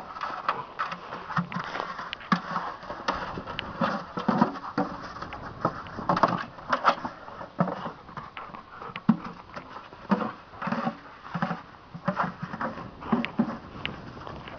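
A dog nosing and pushing a black plastic bucket about on snow: irregular scraping, knocking and crunching.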